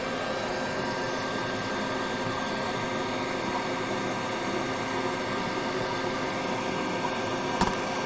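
Steady machine hum with faint steady tones in it, and one sharp click near the end.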